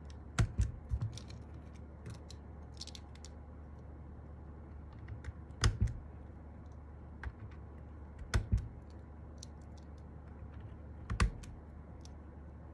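A few sharp plastic clicks and clacks from a Sky87 mechanical keyboard, mostly in close pairs a few seconds apart rather than continuous typing.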